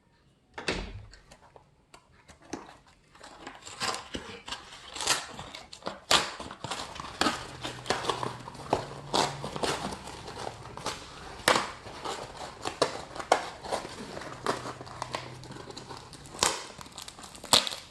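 Packaging being handled, crinkling and rustling with many irregular sharp crackles; it is mostly quiet for the first few seconds, and the crackling grows busy from about four seconds in.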